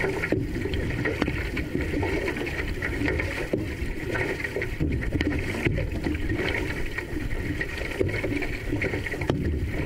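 Water rushing and splashing along the hull of a paddled outrigger canoe, a steady noise.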